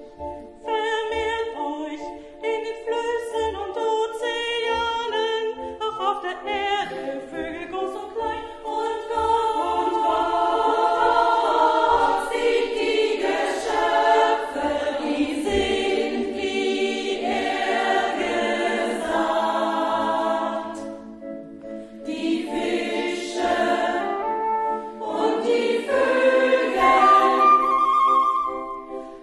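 Sacred choral music: a soprano sings in German over steady repeated staccato organ chords, then a three-part women's choir takes over. A flute line joins near the end with a short trill.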